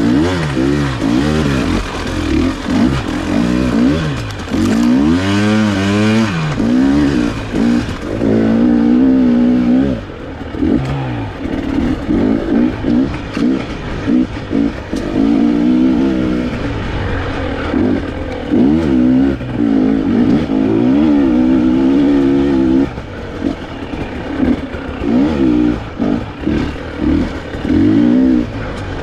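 2021 KTM 300 XC TPI two-stroke dirt bike engine revving up and down repeatedly under riding throttle, with quick on-off blips in the last several seconds.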